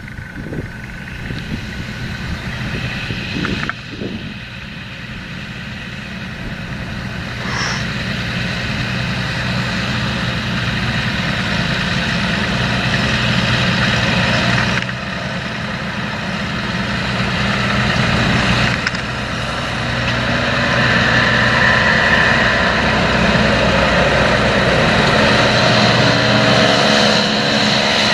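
John Deere 7230R tractor's six-cylinder diesel engine running steadily as it works a seed drill across the field, getting louder as the tractor comes closer.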